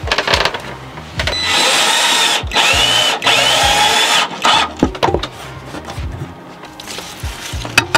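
Cordless drill driving into a wooden wall panel, its motor whining in three bursts with the pitch dipping and rising, then stopping; a few knocks and handling clicks before and after.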